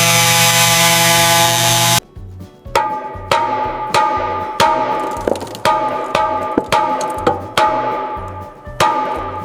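A power tool runs steadily and cuts off abruptly about two seconds in. It is followed by a run of sharp hammer blows on metal, roughly one and a half a second, each ringing briefly.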